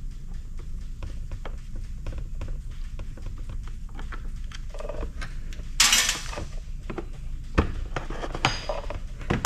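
Screws being worked out of a plastic cooler housing by hand: small clicks and taps of the screwdriver and parts, a brief scraping rattle about six seconds in, and a few sharp knocks near the end.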